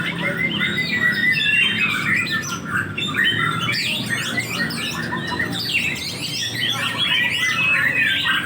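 Several songbirds singing at once, a dense, continuous tangle of overlapping chirps, trills and whistles.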